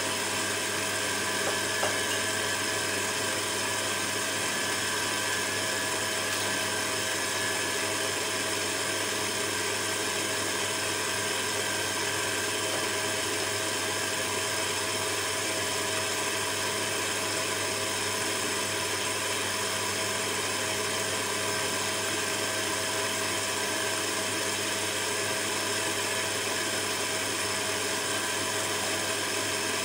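Electric stand mixer running steadily, its beater creaming margarine in a stainless steel bowl: an even motor hum that does not change.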